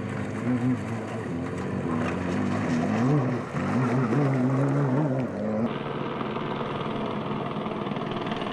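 Rally vehicle engine revving, its pitch rising and falling. About five and a half seconds in it cuts abruptly to a steadier, noisier engine sound.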